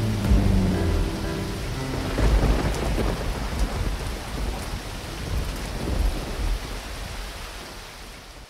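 Heavy rain with rolling thunder, the deep rumbles swelling several times. The storm fades out over the last two seconds.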